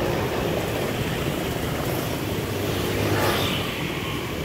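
CC203 diesel-electric locomotive's engine running at low power as the locomotive creeps forward, a steady low drone. A brief hiss rises about three seconds in.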